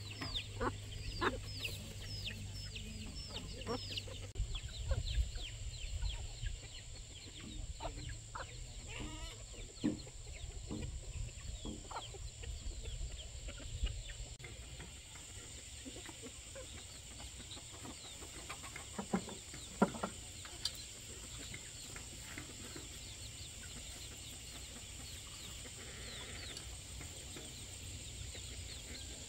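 Chicks peeping in quick, high, falling cheeps, with a hen clucking among them. The cheeps are busiest in the first half and thin out later. A couple of sharp knocks come about two-thirds of the way through, over a steady high-pitched hiss.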